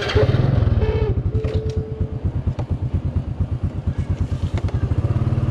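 Small motor scooter engine idling with a fast, even putter, rising slightly near the end.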